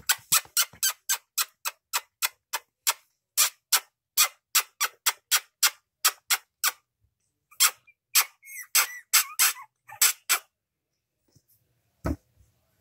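A quick, even series of sharp clicks, about three a second, that breaks off briefly about seven seconds in and then comes back as a looser run before stopping. There is a single low thump near the end.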